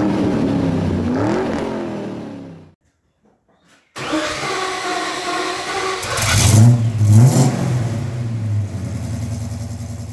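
Car engine revving up and down, fading out about three seconds in. After a short silence a Holden VH Commodore's engine comes in abruptly, running, is blipped twice in quick succession and settles back to a steady idle.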